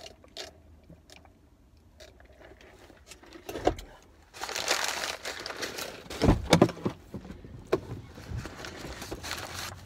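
Paper burger wrapper and bag being crumpled and handled, a crinkling rustle with a few knocks that starts about four seconds in after a quiet stretch.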